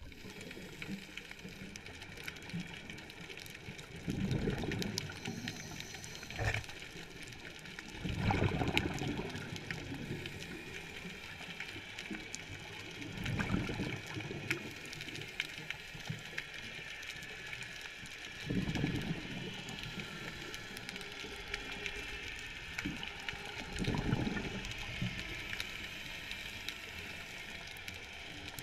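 Scuba diver breathing through a regulator underwater: a bubbly exhalation comes about every five seconds, five in all, over a constant faint crackling with tiny clicks.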